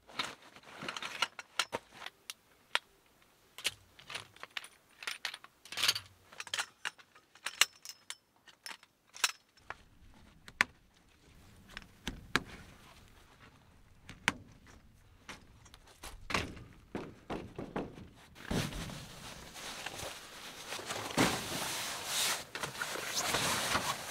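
Objects being handled: a long run of separate small clicks, taps and knocks with short pauses between, then about six seconds of continuous rubbing and rustling near the end.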